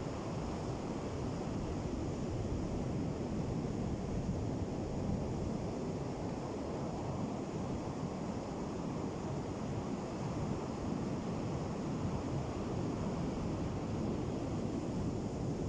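Ocean surf on a beach: a steady low rush of breaking waves, with no single wave standing out.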